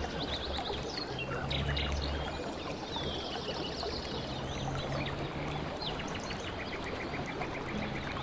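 Stream water running steadily, with birds chirping over it and a quick trill of repeated notes near the end.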